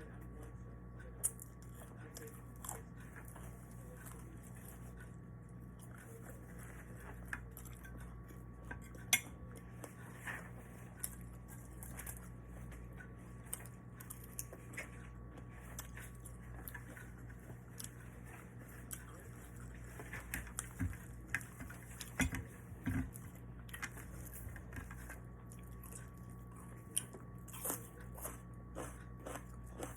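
A person eating: chewing and biting, with scattered small clicks and clinks of utensils against dishes and a few sharper knocks, over a steady low hum.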